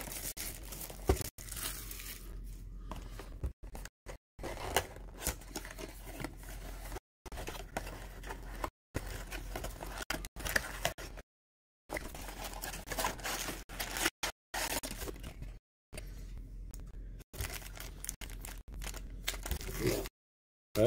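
Plastic shrink-wrap being torn off a trading-card blaster box and crinkled in the hands, with scattered clicks and scrapes of the cardboard box and packs. The crackling cuts out suddenly to dead silence several times.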